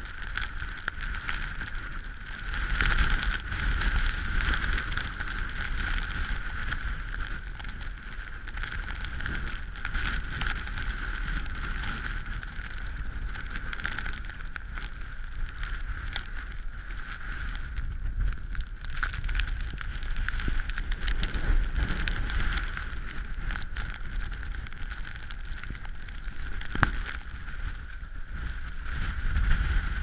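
Storm wind buffeting a GoPro's microphone in a steady low rumble, over the rushing of storm-surge seawater flooding across the road, with a few sharp ticks here and there.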